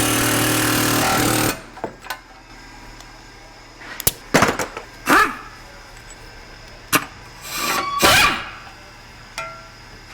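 A power tool runs steadily for about the first second and a half, then stops, while a rusted outer tie rod end is being freed from a front steering knuckle. Several sharp metal clanks and knocks follow, the loudest around four to five seconds in and again near eight seconds.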